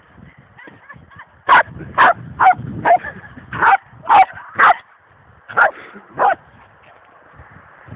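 A dog barking loudly: seven sharp barks in quick succession from about a second and a half in, then a short pause and two more.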